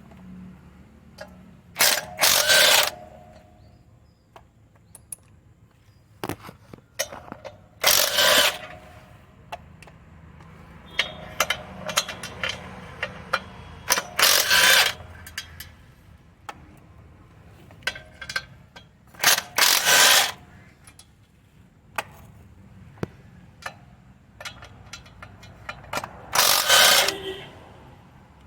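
A ratchet wrench undoing the clutch cover (pressure plate) bolts from the flywheel, in five short bursts of ratcheting about six seconds apart, with clinks of metal tools between them.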